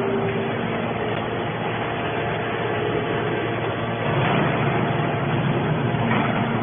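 Hydraulic scrap-metal baler running steadily, its motor and pump making a continuous mechanical noise that swells about four seconds in.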